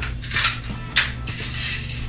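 Background music with a steady low beat, over which come a few short metallic clicks and rattles, about half a second in, at one second, and again near the end.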